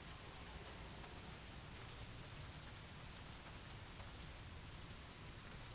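Faint, steady outdoor background hiss with a few soft ticks scattered through it.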